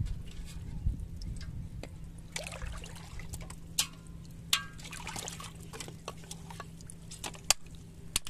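Shallow water trickling and splashing as hands and a stick move in it, with a few separate sharp clicks and taps.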